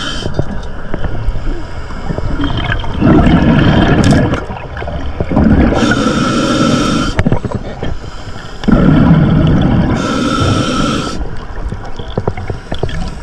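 Underwater noise at a camera housing on a swimming diver: a steady rush of water with louder low surges about every three seconds.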